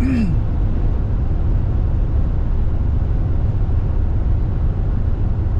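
Steady road and engine noise inside a moving car's cabin, an even low rumble.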